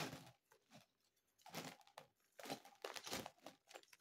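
Faint crinkling and rustling of a bag being handled, in scattered short bursts.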